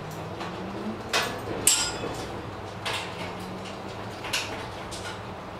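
Metal knocks and clanks from an iron trolley frame being put together by hand: a handful of sharp, separate strikes, the loudest a little under two seconds in.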